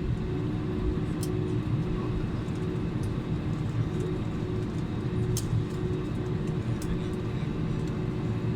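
Cabin noise of an Airbus A320neo rolling on the ground just after landing: a steady low rumble with a faint steady hum and a few light clicks.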